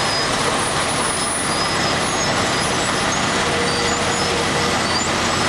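Asphalt milling machine and a dump truck working together, making a loud, steady, unbroken mechanical noise of diesel engines and grinding as the machine's conveyor loads old asphalt millings into the truck.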